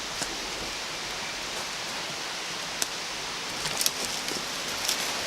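Steady rush of falling water from a waterfall or mountain stream, with a few sharp clicks and scrapes about three, four and five seconds in.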